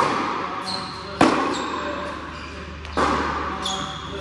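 Tennis rally: three sharp thwacks of the ball off racquet strings and court, about a second and a half apart, each ringing on in the large indoor hall.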